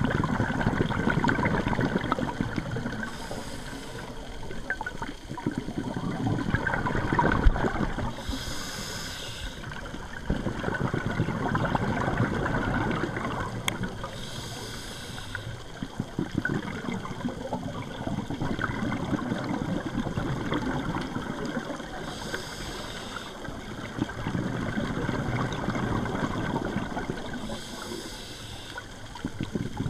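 Scuba diver breathing through a regulator underwater, five breaths in all. Each breath is a short high hiss on the inhale, followed by a longer bubbling rush as the exhaled air escapes.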